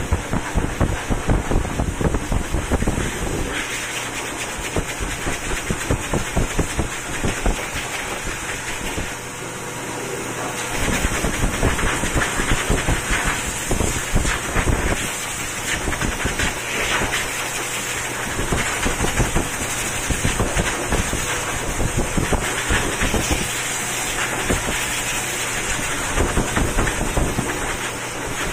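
Pet grooming dryer blowing a strong stream of air through its hose nozzle over a wet cat's fur, a steady rushing with irregular gusts buffeting the microphone.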